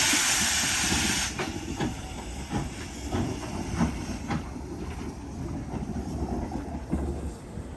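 Steam locomotive letting off a loud hiss of steam that stops about a second in, followed by a run of sharp knocks about two a second.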